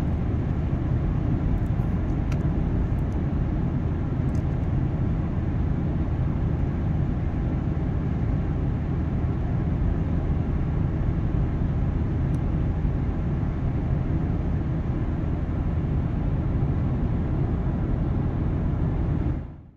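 Cabin sound of a Fiat Tipo's 1.4 FIRE four-cylinder petrol engine cruising steadily at 90 km/h on cruise control, about 2,000 rpm: a low, even engine drone under tyre and road noise from winter tyres. It fades out near the end.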